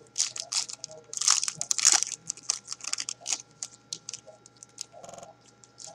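Foil wrapper of a 2012 Topps Prime football card pack crinkling and tearing as it is opened. The crackling is loudest about one to two seconds in, then gives way to lighter rustling as the cards are slid out.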